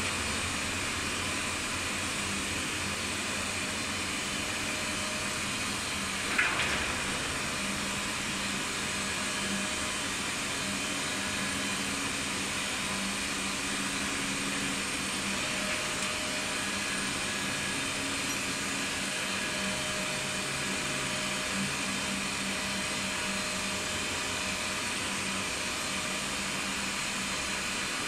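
Service lift in a Vestas V80 wind turbine tower descending, its hoist running with a steady whir and hum. A single sharp clank sounds about six seconds in.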